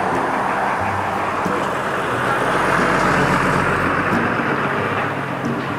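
Street traffic going by, with a vehicle passing that is loudest about two to four seconds in.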